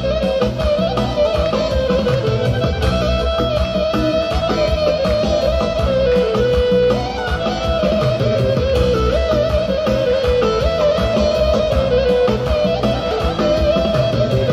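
Instrumental music: a wavering lead melody over a steady low beat.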